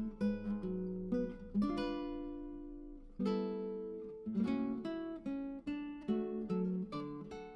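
Background music: acoustic guitar plucking and strumming notes that ring and fade, several a second.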